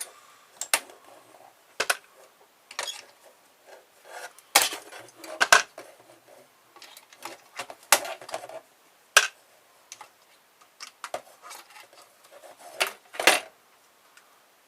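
Small copper parts from a car stereo being picked out and handled: irregular sharp metallic clicks and clinks, with louder clinks about four and a half, five and a half and nine seconds in and near the end.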